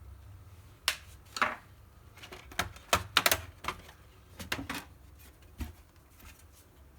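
A run of sharp clicks and taps from a laptop's plastic casing and a small screwdriver being worked, irregular and clustered between about one and six seconds in, densest around three seconds.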